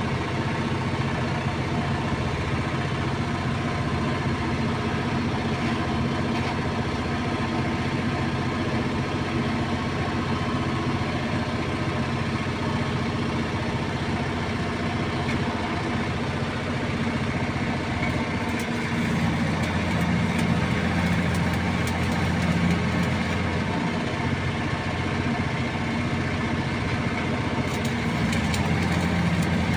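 An engine running steadily at idle, growing a little louder about nineteen seconds in.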